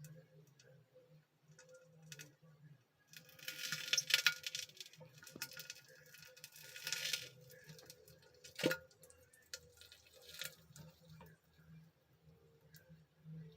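A man urinating into a toilet: a spattering, hissy stream for a few seconds, with shorter spurts and small knocks and ticks, and one sharp click near the two-thirds mark.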